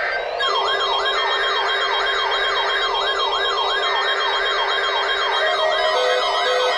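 Electronic siren tone sweeping rapidly up and down, about two and a half cycles a second, over steady electronic tones; it starts about half a second in, and a lower pulsing tone joins near the end.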